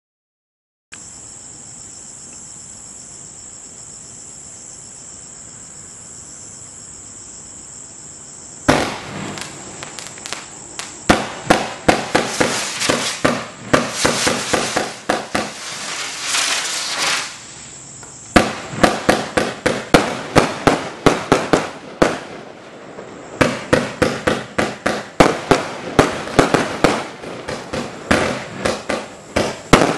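Crickets chirping steadily for the first several seconds. Then, about nine seconds in, the Gemstone Fireworks Gargantuan compound firework cake starts firing: rapid volleys of launch shots and crackling bursts, several a second, broken by two short pauses.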